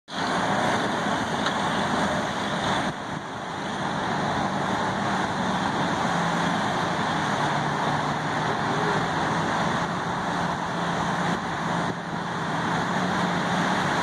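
Steady rush of breaking surf with the low, steady drone of an AAV7A1 tracked amphibious vehicle's diesel engine as it drives into the waves.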